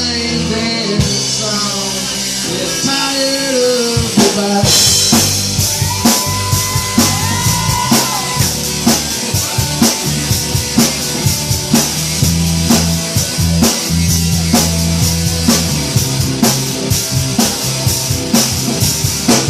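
A live band playing an instrumental passage with no singing. For the first few seconds sliding, bending lead lines ride over the bass, then about four and a half seconds in the drum kit comes in with a steady, driving beat and cymbals.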